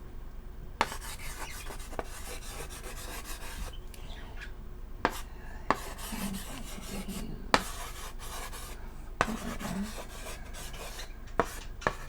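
Chalk writing on a chalkboard: scratchy strokes, with sharp taps now and then as the chalk meets the board.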